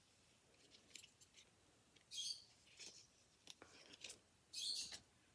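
Scissors snipping damaged leaves off a peperomia: two crisp cuts, about two seconds in and near the end, with fainter clicks of the blades between.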